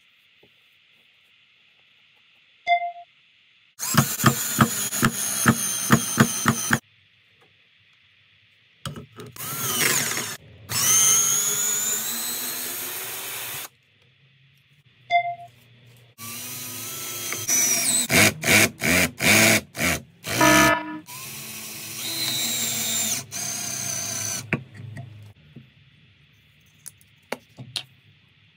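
Cordless drill driving long screws into a wooden board in several bursts. The motor whine rises in pitch as it spins up, and runs of sharp clicks come between the bursts.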